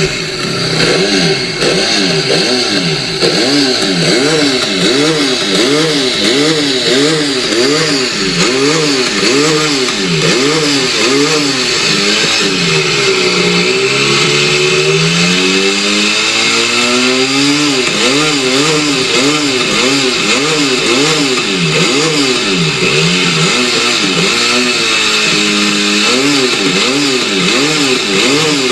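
Benelli Leoncino 500's parallel-twin engine revving through a GPR Powercone Evo slip-on exhaust, in quick regular throttle blips of about three every two seconds. About halfway through comes one slower, longer climb in revs and drop back.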